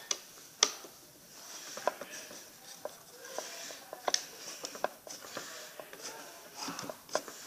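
Scattered light clicks and knocks of small objects being handled and set down, with a faint clatter in between.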